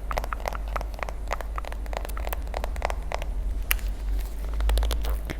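Close-miked ASMR mouth and food sounds: rapid, irregular small clicks and crackles, over a steady low background hum.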